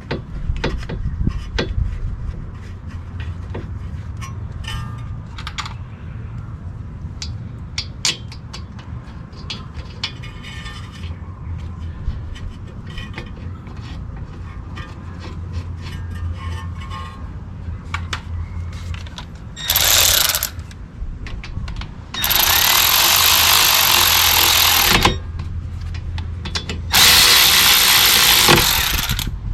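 Scattered metal tool clicks and clanks during front brake caliper reassembly, over a steady low hum. Three loud hissing bursts follow in the second half: a short one, then two of about three seconds each.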